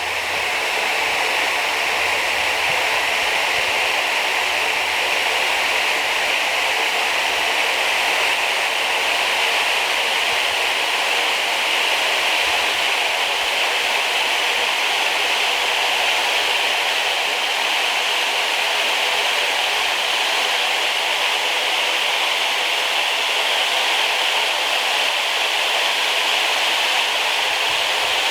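A vacuum cleaner motor spins a bladed fan at high speed through a tight belt drive: a steady, loud rush of air from the blades with a faint high motor whine. It builds up over about the first second, then holds as the rig approaches its top speed.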